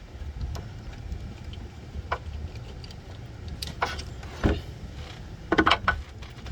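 Hand tools and bolts clinking and knocking against metal while the AC compressor's mounting bolts are undone: scattered sharp clicks, the loudest about four and a half seconds in and a quick cluster soon after, over a steady low rumble.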